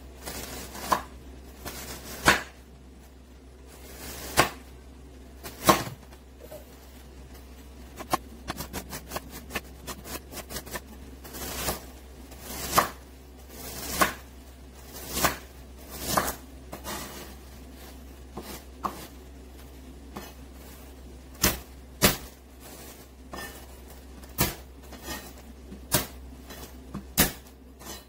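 Chef's knife chopping an onion on a wooden cutting board: separate knocks of the blade on the board every second or two, with a quick run of light chops about eight seconds in.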